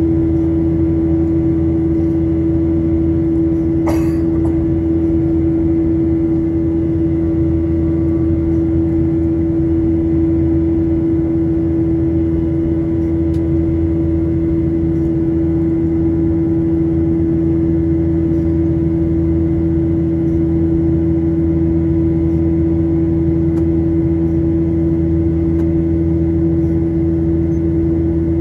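Cabin noise of a Boeing 737-900 climbing on its CFM56-7B26 turbofan engines, heard from a window seat beside the engine: a loud, steady drone with a strong steady hum. A brief click about four seconds in.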